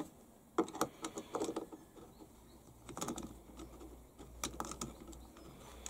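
Faint, scattered light clicks and taps of a small flat-bladed screwdriver working in a lawnmower carburettor as the main jet is unscrewed.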